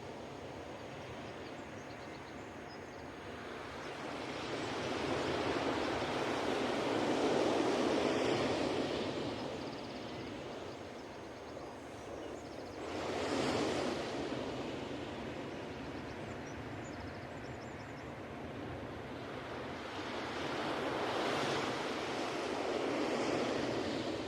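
Ocean surf breaking on a beach in slow surges: one wave builds and fades over several seconds, a sharper crash comes just past halfway, and another wave washes in near the end.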